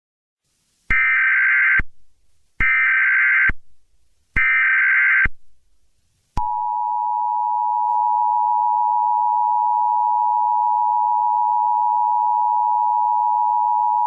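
Emergency Alert System tones: three bursts of the SAME digital header, each a screechy data warble about a second long, announcing a new alert. About six seconds in, the steady two-tone attention signal begins and holds unchanged.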